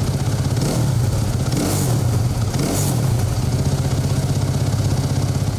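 Suzuki RM-Z motocross bike's single-cylinder four-stroke engine idling steadily at about 1,850 rpm in neutral, with an even pulsing beat.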